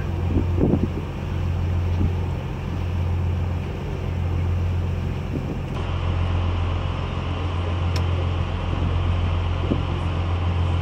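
A passenger river boat's engine running with a steady low drone, under a constant rush of wind and water; the rush turns brighter about six seconds in.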